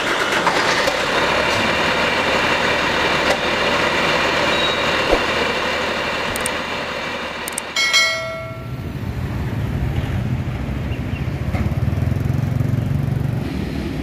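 Intro sound effects for an animated channel logo and subscribe button. A steady noisy rush runs for the first eight seconds, then comes a click and a short ringing bell chime about eight seconds in, followed by a low steady rumble.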